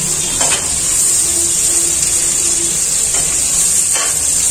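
Sliced onions sizzling in hot oil in an aluminium kadai, a steady high hiss, with a metal ladle scraping against the pan a few times as they are stirred.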